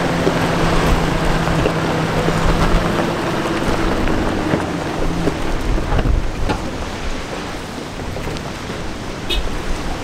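Heavy wind noise and a rushing roar over a 4WD's engine, which holds a steady tone for about the first five seconds. A few sharp knocks come in the second half.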